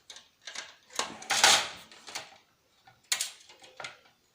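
Metal parts of a PlayStation 3 being taken apart with a hand screwdriver: irregular clicks, scrapes and clatter, the loudest about one and a half seconds in.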